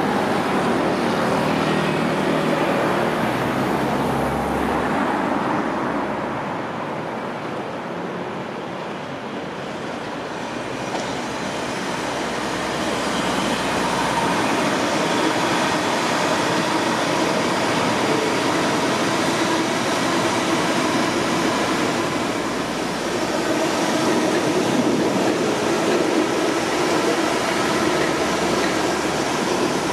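Electric multiple-unit passenger trains running past on the line: a steady rumble of wheels on rails with a faint electric hum, briefly quieter about eight seconds in. Toward the end the train is a pair of Class 450 Desiro units.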